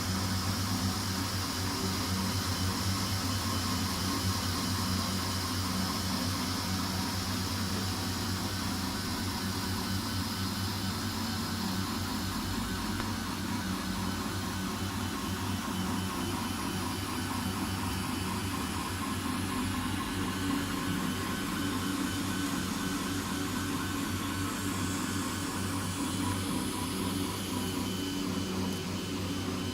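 MINGDA MD-4C 3D printer running a print: a steady whir and hum of its fans and motors, with faint high motor tones that shift in pitch near the end.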